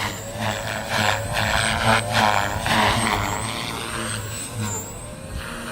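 Electric RC helicopter in flight, its motor and gears giving a high, wavering whine over the rotor's steady hum. Gusts of strong wind rush over the microphone, loudest from about one to three seconds in.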